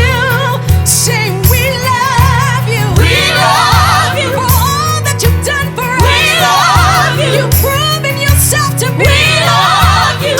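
Gospel worship music: several voices singing with wavering, vibrato-laden runs over a band whose bass pulses in a steady beat.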